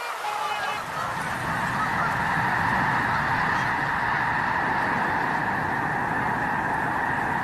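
A large flock of snow geese honking together in a dense, continuous chorus of overlapping calls that swells over the first two seconds and then holds steady.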